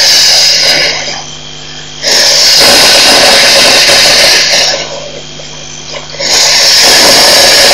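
Elephants drinking at a water pipe: loud rushing, hissing water noise in three bursts, a short one at the start, then two longer ones of about three seconds each.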